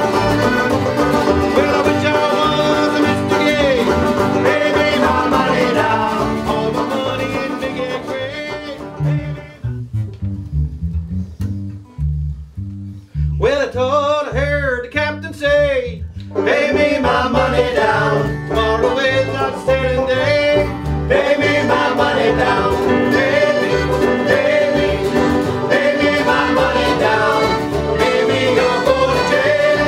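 Folk band playing an instrumental passage led by banjo and guitar. About ten seconds in the band drops away to bass notes, a lone wavering melody line plays briefly, and the full band comes back in around sixteen seconds.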